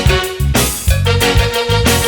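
Background music with a steady beat and keyboard, an instrumental passage between sung lines of a Japanese pop song.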